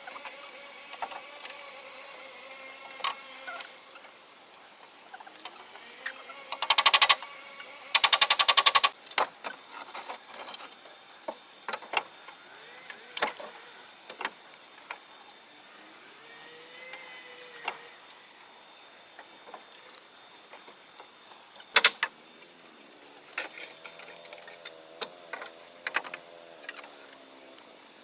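A power tool running in short bursts with a rapid rattle, twice close together and once more later, with scattered knocks and taps of work in between.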